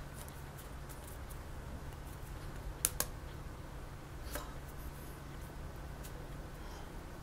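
Steady low background hum with a few soft clicks: two sharp ones close together about three seconds in and another about a second later.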